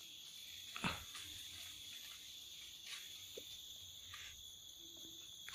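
Steady high-pitched chorus of insects, with a single sharp thump a little under a second in and a few faint clicks later.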